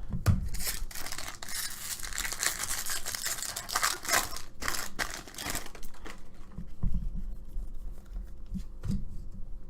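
A foil baseball-card pack wrapper being torn open and crinkled for about the first half. It is followed by quieter rustling and light clicks as the stack of cards is handled.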